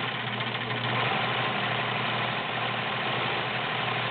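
All-metal Kenmore Model 1516 sewing machine running steadily at speed, stitching a cam-driven stretch pattern that works the fabric forward and back.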